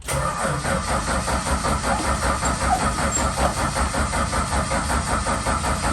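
Valiant Charger engine running roughly with an uneven, pulsing beat, which the owner takes for fuel starvation: it is running out of fuel.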